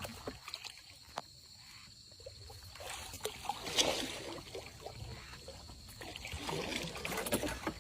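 Faint water trickling and splashing, with scattered small knocks and rustles around a small boat, over a steady high chirring of insects.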